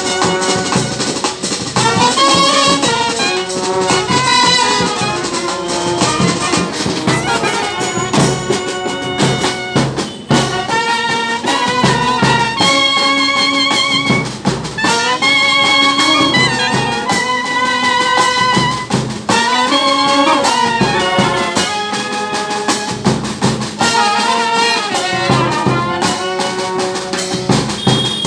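Brass band playing a tune: trumpets and low brass horns carrying the melody over snare drum and bass drum.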